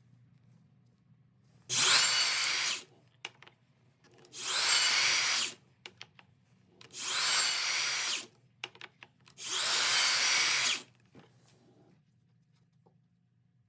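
Electric drill run in four separate bursts of about a second each, each starting with a rising whine as the motor spins up.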